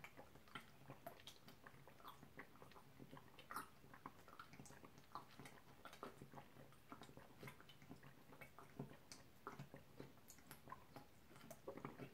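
Faint gulps and swallows of water drunk in one long continuous draught from a plastic bottle: soft irregular clicks, two or three a second.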